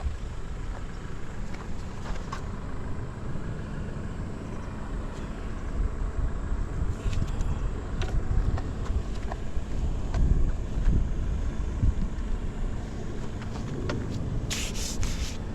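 Honda Ape 100's air-cooled single-cylinder four-stroke engine running, louder in a series of throttle blips from about six to twelve seconds in, with no abnormal noise, as the seller describes it. A brief hiss comes near the end.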